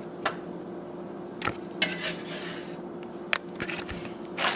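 A metal spatula knocking and clinking against a pan, with a few separate sharp taps spread through the moment, over a faint steady low hum.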